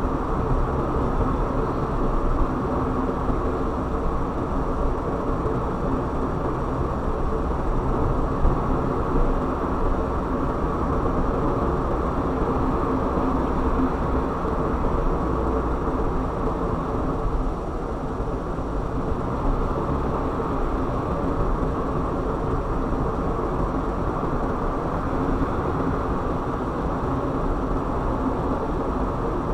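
Car driving along a road: steady road and engine noise.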